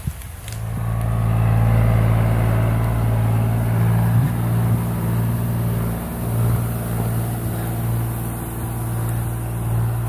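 Tractor engine running steadily while driving along a forest skid trail; it comes in about half a second in.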